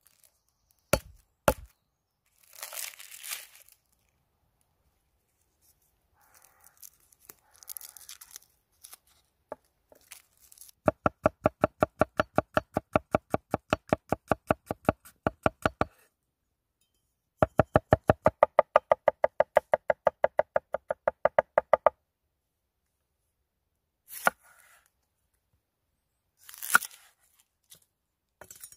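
Garlic bulb being broken apart and its papery skin peeled with a crackly tearing, then a large curved-blade chef's knife rapidly mincing garlic on a wooden cutting board, about eight knocks a second in two runs of about five seconds each. A few single cuts follow near the end.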